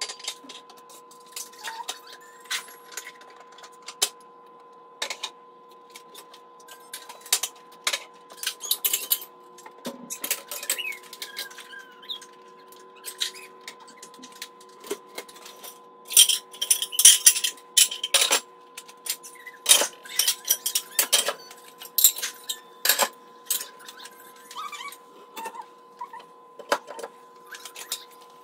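Dishes, glasses and cutlery clinking and knocking as they are taken out of dishwasher racks and stacked into kitchen cabinets, with a dense run of clatter about sixteen seconds in. A faint steady hum runs underneath.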